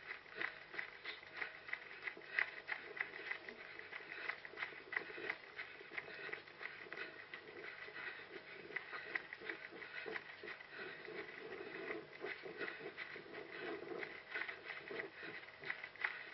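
A runner's footfalls, about two a second, with brushing and rustling, picked up by a head-mounted GoPro.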